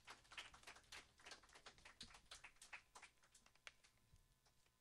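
Near silence with faint, irregular clicks and taps, several a second, thinning out near the end.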